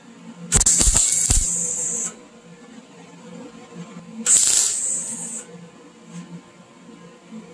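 MIG welder arc crackling and hissing in two bursts, the first about half a second in and lasting a second and a half, the second a few seconds later and shorter: tack-welding a V-band flange onto a stainless steel exhaust downpipe.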